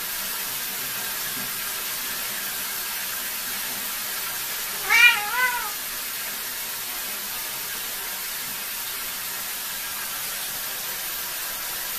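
A cat gives two short meows in quick succession, each rising and falling, about half a second apart. A steady hiss runs underneath.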